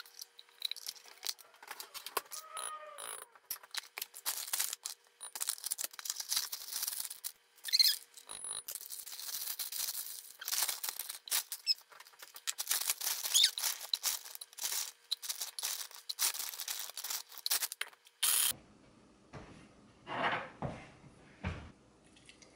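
Irregular crinkling, rustling and clicking of smoothie ingredients being handled: a plastic bag of frozen fruit and items knocked into a blender jar. After a sudden change about 18 seconds in, a few quieter sounds as the thick blended smoothie is poured from the blender jar into a glass jar.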